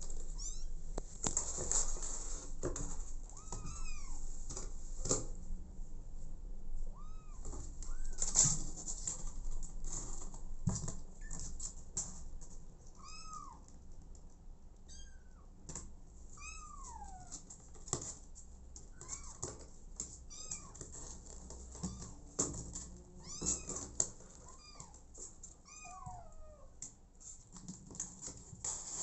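Kittens mewing over and over in short cries that rise and fall in pitch. Scattered clicks and rustles run beneath them. The cries come louder and thicker in the first half and quieter later.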